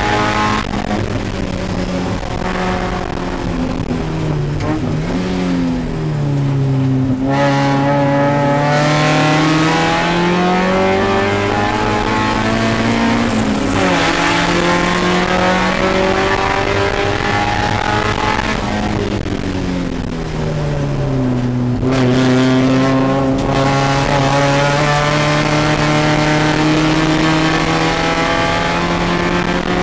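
Spec Miata race car's four-cylinder engine heard from inside the cabin, pulling hard with revs climbing along the straights and dropping sharply several times as the driver lifts and shifts down for corners.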